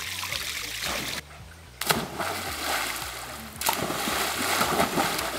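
Swimmers jumping off a dock into a pond: two splashes into the water, about two seconds in and again near four seconds, each followed by spraying and sloshing water.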